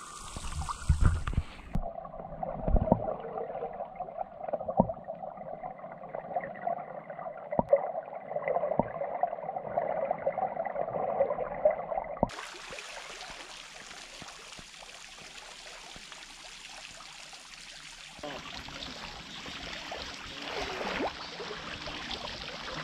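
Pool water gurgling and lapping close to a wet camera microphone, with small clicks and splashes, muffled for the first half. About halfway through it gives way to a steady, even hiss of water.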